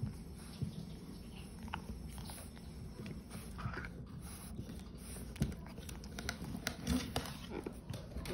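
A dog moving about close by: scattered light clicks and knocks over a low rumble.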